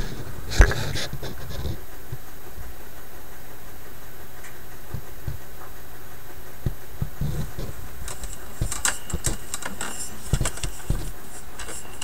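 Close handling noises among the wiring of a tube radio chassis: a sharp knock about half a second in, then scattered light clicks and rustles later on, over a faint steady hum.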